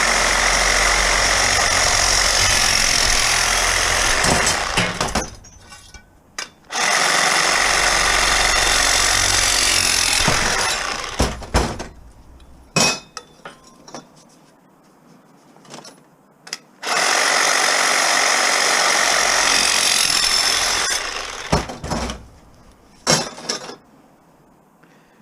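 Handheld power tool run in three bursts of about four seconds each, with sharp knocks and clatter of metal being handled between the bursts.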